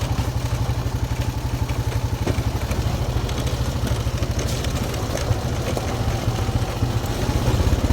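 Small off-road vehicle engine running steadily with a fast, even pulse as it is driven over a bumpy trail, with scattered rattles; slightly louder near the end.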